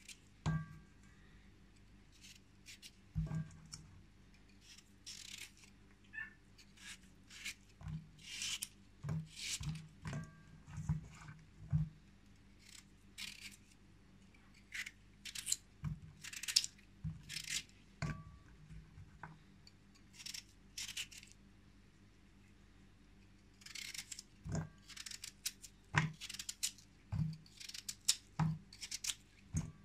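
Kitchen knife slicing through raw peeled potatoes held in the hand, in irregular short cuts, with wedges dropping into an enamel bowl with small knocks, some of which ring briefly. There is a pause of a few seconds about two-thirds of the way through.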